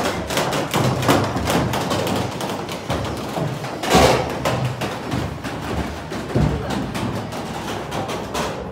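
Wooden donkey tread wheel of a castle well-house turning, with irregular wooden knocking and clatter as a donkey's hooves strike its treads and the rope winds on the drum. A louder knock comes about four seconds in, and another a couple of seconds later.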